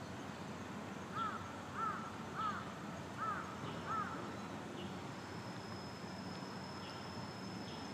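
A bird calling five times in quick succession, short calls that rise and fall in pitch, over steady outdoor background noise. A thin, high, steady tone starts about five seconds in.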